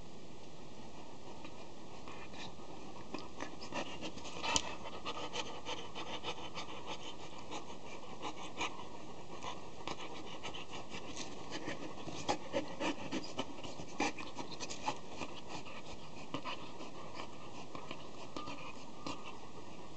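A 10-month-old Akita dog play-biting and mouthing a person's hand while rolling on its back, giving irregular soft scratches, rustles and clicks over a steady hiss, with some panting.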